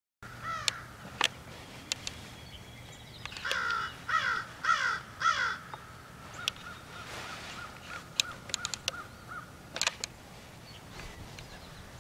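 A bird calling: a run of four harsh, falling calls a little over half a second apart about three seconds in, after a single call near the start, with a few sharp clicks scattered through.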